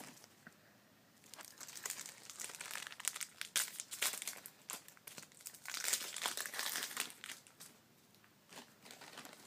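Foil wrapper of a trading card pack crinkling in irregular bursts as it is torn open and handled.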